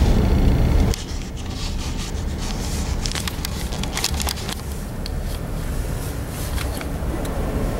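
Road and engine rumble inside a moving car, heard from a dashboard camera. It drops sharply about a second in, then goes on quieter with scattered clicks and crackles.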